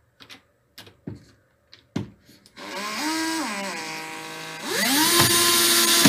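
Cordless drill-driver driving a screw through a metal hinge plate into the cabinet side. A few handling clicks come first; about two and a half seconds in, the motor spins up, then slows with a falling whine as the screw bites. It stops briefly and restarts louder at steady speed near the end.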